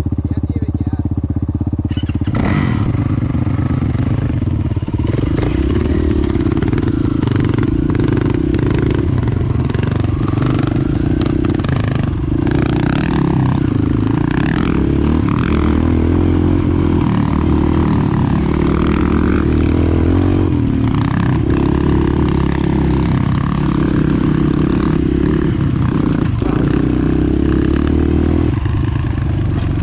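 Dirt bike engine heard from on the bike during a slow trail ride, its pitch rising and falling as the throttle opens and closes. About two seconds in the sound shifts from a steadier running note to the changing engine note of riding.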